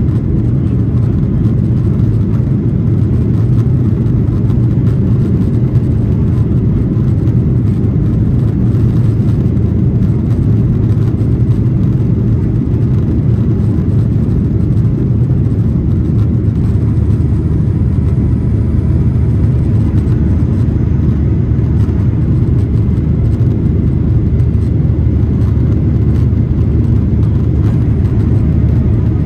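Cabin noise of a Boeing 737-800 in the climb after takeoff: a steady low rumble of its CFM56 turbofan engines and airflow, heard from a window seat, with no change in pitch or level.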